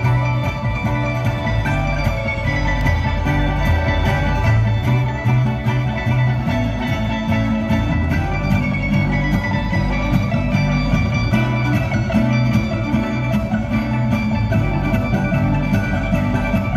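Live bluegrass string band playing an instrumental passage: rolling banjo picking and fiddle over upright bass, amplified through a theatre PA, with no singing.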